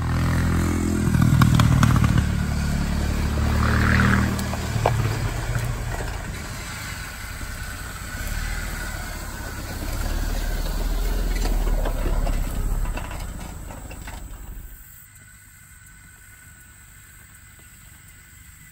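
2008 Jeep Wrangler Rubicon's 3.8-litre V6 revving and accelerating, its pitch rising over the first few seconds, then running hard with further surges. About fifteen seconds in the sound cuts off to a faint hiss.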